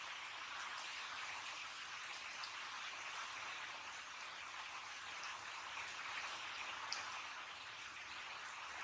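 Heavy rain falling steadily: an even hiss with a few faint ticks of drops.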